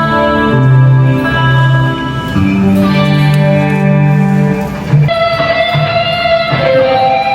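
Live band playing an instrumental passage through a PA: electric guitar chords over held bass notes, each lasting a second or two, with a change of chord about five seconds in.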